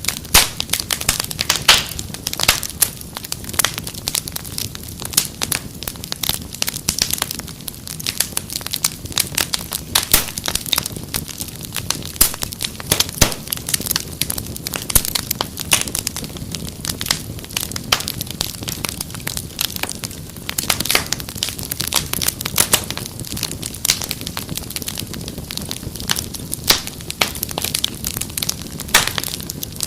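Wood fire crackling and popping: many irregular sharp snaps and pops over a steady low rumble of the flames.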